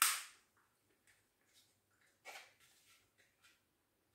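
A sharp clatter as a small kitchen item is put down on a wooden cutting board, fading quickly, then a softer knock on the counter about two seconds later.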